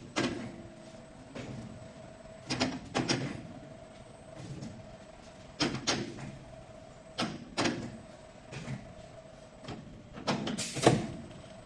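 CNC 3D wire bending machine at work: a steady servo-motor whine under sharp metallic clacks, often in pairs about half a second apart, every few seconds as the wire is fed and bent.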